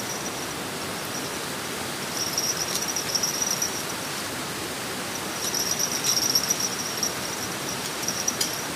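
Insects trilling high in three spells, over a steady outdoor hiss.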